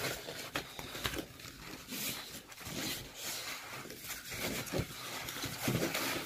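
Soft rustling with scattered light taps and clicks as a diamond painting canvas is unrolled and handled.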